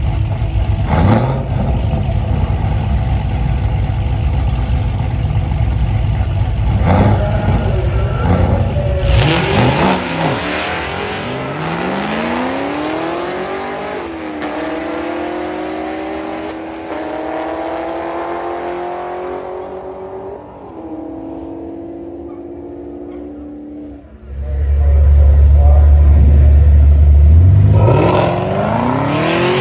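Chevrolet Camaro engine idling with a low rumble at the starting line, then launching about nine seconds in. Its note climbs through the gears with several upshifts and fades away down the track. Near the end a second Camaro rumbles loudly close by and starts to rev.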